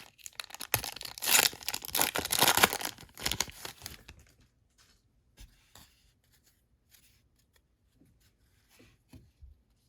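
Baseball card pack wrapper being torn open and crinkled, a loud crackling tear lasting about four seconds. After that come only a few faint ticks.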